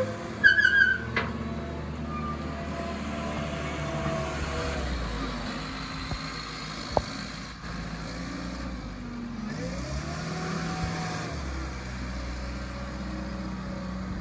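2010 John Deere 344J wheel loader's diesel engine running as the loader drives and manoeuvres, rising and falling in speed around ten seconds in. About half a second in there is a short burst of high squeals, the loudest sound here.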